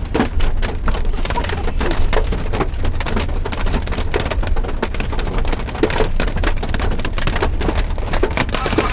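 Hailstones pelting a vehicle's roof and windscreen: a dense, rapid clatter of hard hits that never lets up, over a steady low rumble.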